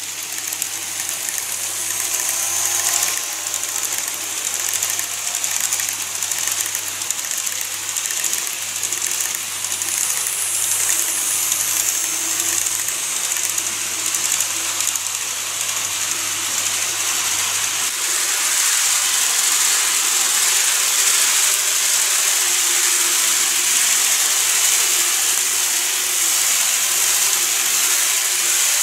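N-gauge model trains running over a plastic truss bridge on the layout: a steady whirr and hiss of small motors and wheels rolling on the track, growing a little louder in the last third.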